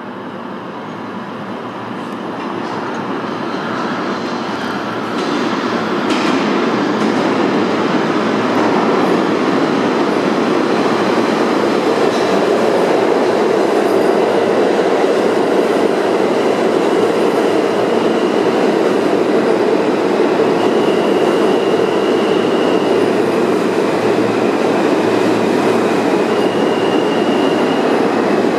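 R160A-1 subway train entering the station: a rumble that grows louder over the first several seconds as it comes out of the tunnel, then a steady loud rumble and wheel clatter as the cars roll past the platform. Two brief high squeals come in the second half.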